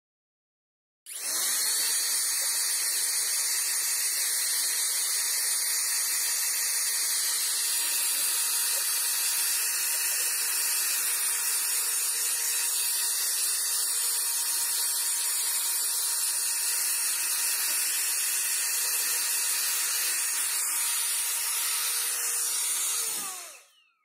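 Electric blow duster running in one long continuous blast: a steady rush of air with a faint motor whine, blowing dust out of a laptop's cooling fan and heatsink fins. It starts about a second in and winds down near the end.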